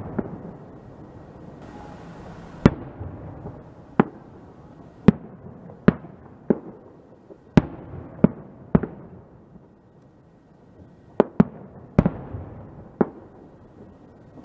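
Aerial fireworks shells bursting: about a dozen sharp bangs at uneven intervals, with a short lull about two-thirds of the way through.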